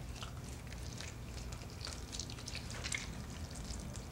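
A lime being squeezed by hand: faint, scattered wet ticks and drips, over a steady low hum.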